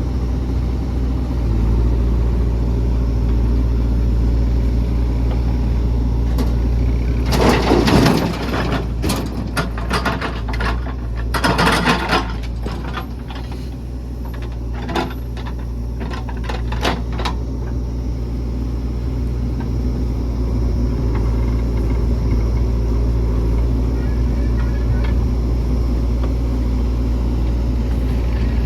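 Heavy diesel engine of a JCB 3DX backhoe loader running steadily while the machine works. A quarter of the way in comes a run of clattering knocks and scrapes lasting several seconds, loudest in two bunches, before the steady engine drone carries on alone.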